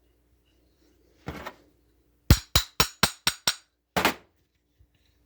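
Six quick sharp hammer taps on carburetor parts during a rebuild, coming about five a second, preceded by a short scuff and followed by one heavier knock.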